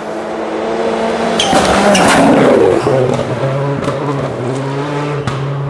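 Rally car at full speed on a snow stage passing close by: its engine note builds to the loudest point about two seconds in as it goes past with a rush of tyre and snow noise, then settles to a steadier, lower note as it drives away. A few sharp cracks are heard along the way.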